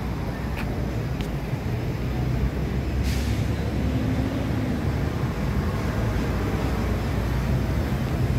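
Steady rumble of city street traffic, with a short hiss about three seconds in.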